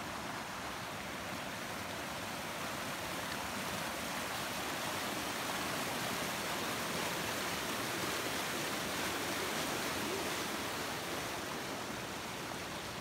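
Creek water running steadily as a continuous rush, growing a little louder in the middle and easing off again.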